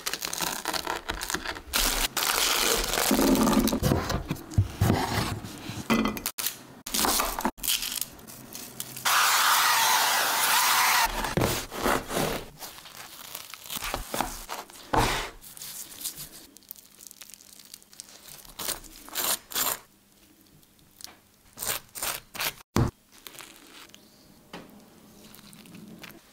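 Close-up food-preparation sounds: a serrated bread knife sawing through crisp toasted baguette with crackling crust, loudest in the first half. After that come sparser, quieter scrapes and taps of bread and utensils.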